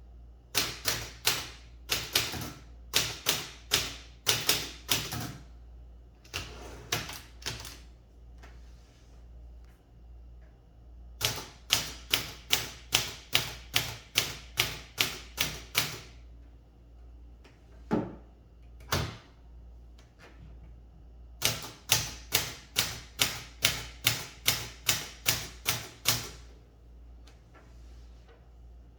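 Olympia Traveller de Luxe S manual portable typewriter being typed on in four bursts of quick keystrokes, about four a second, with short pauses between them. Two single, heavier strikes fall in the pause about two-thirds of the way through.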